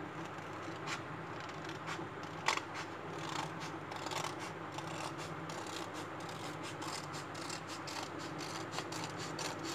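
Scissors cutting through a sheet of coloured paper: a long run of short snips, a few at first and then close together, over a faint steady hum.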